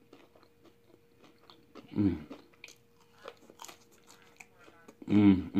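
A person chewing soft cheese fries close to the microphone, with small wet mouth clicks and smacks. Two short hummed vocal sounds break in, a brief one about two seconds in and a louder one near the end.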